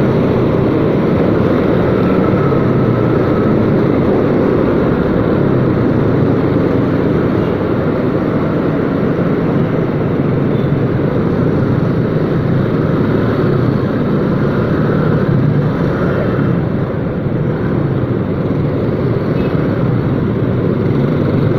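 Motorcycle ridden slowly through dense traffic, heard from on the bike: a steady rumble of its engine mixed with the noise of the surrounding cars and motorbikes.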